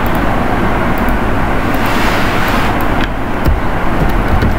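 Steady loud background noise with a low electrical hum, over which faint keyboard key clicks are heard as a file name is typed.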